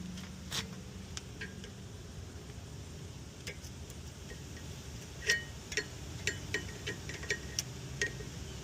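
Light metallic clinks and taps of brake parts and hand tools being handled during disc brake work, a few scattered ones at first, then a quicker run of about a dozen from about five seconds in, over a steady low hum.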